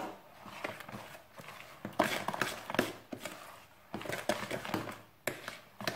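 A metal spoon stirring a thick, floury yeast sponge with sugar in a plastic bowl. It makes irregular scraping strokes and clicks against the bowl's side, with short pauses between bursts of stirring.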